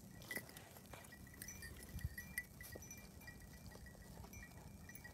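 Small bells worn by several walking dogs ringing faintly, a scatter of irregular light tinkles.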